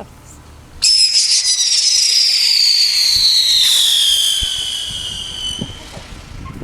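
Whistling firework going off: a shrill whistle starts suddenly about a second in, then slowly falls in pitch over about five seconds before fading out.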